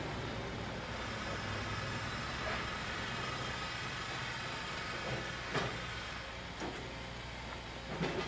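Pipe-handling conveyor machinery running with a steady low hum, with two sharp knocks, about five and a half and eight seconds in.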